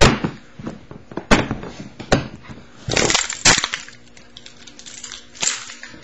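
A Master Lock padlock and its keys being handled and unlocked: a string of sharp clicks and short metal rattles, busiest about three seconds in.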